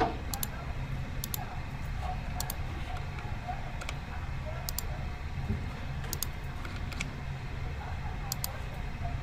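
Short, sharp computer clicks, mostly in quick pairs, from a mouse and keyboard being used, over a steady low room hum.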